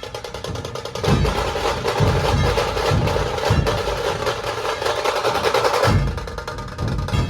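Dhol tasha ensemble playing: deep dhol beats under a fast, rattling tasha roll. It gets louder about a second in and eases off near the end.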